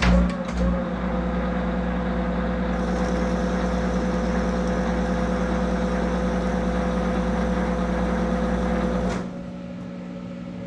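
Monarch 10EE lathe spindle drive starting with a clunk, running steadily with a steady whine through a threading pass, then stopping abruptly about a second before the end as the switch clicks out and dynamic braking halts it. A lower electrical hum from the drive stays on underneath.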